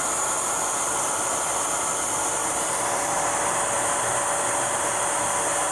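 A shop vac running steadily on its blower side, pushing air through the exhaust system to find leaks: a constant whine over a rushing air hiss.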